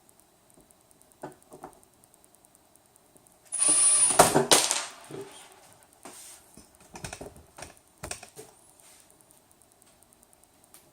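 Power drill running in one short burst about three and a half seconds in, followed by scattered clicks and knocks of parts and screws being handled.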